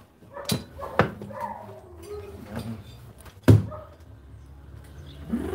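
A few sharp knocks and thuds of household handling, the loudest about three and a half seconds in, with faint pitched sounds between them.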